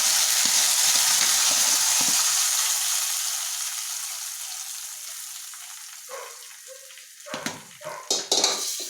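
Hot coconut-oil tempering of mustard seeds, red chillies and curry leaves sizzling loudly as it meets the curd-based cucumber pachadi, the hiss dying away over several seconds. A few knocks and scrapes near the end.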